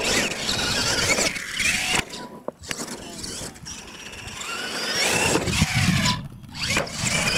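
Radio-controlled monster truck's motor whining as it is throttled, its pitch rising and falling, with two brief drop-outs when the throttle is let off: about two seconds in and again near six seconds, as it jumps.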